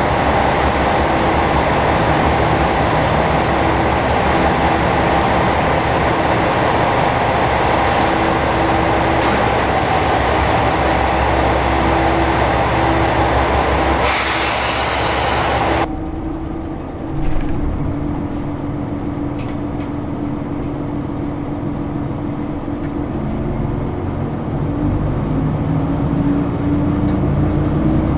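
JR Shikoku 2000 series diesel railcar standing at the platform with its diesel engines running steadily. A loud hiss of about two seconds follows, then the engines are heard muffled from inside the carriage, their note rising near the end.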